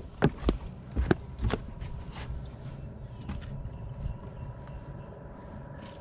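Footsteps and handling knocks on a bass boat's deck, four or five sharp thumps in the first second and a half, then a steady low rumble of wind and water with a faint steady whine.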